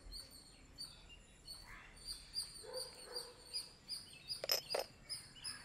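Quiet outdoor ambience with small birds chirping over and over in short high notes, and two sharp clicks about four and a half seconds in.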